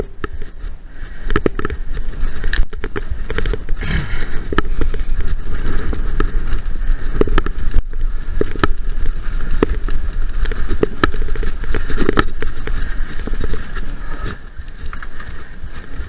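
Mountain bike riding fast over a dirt and leaf-covered woodland trail: steady rumble of wind buffeting the microphone and tyres on the ground, with frequent clicks and knocks as the bike clatters over bumps.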